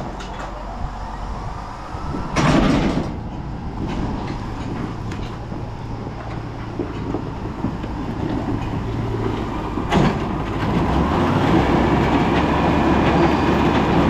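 Farm machinery running with a steady low engine hum and rattling, clanking noise. There is a loud clatter about two and a half seconds in and a sharp knock about ten seconds in, and the machine gets louder over the last few seconds.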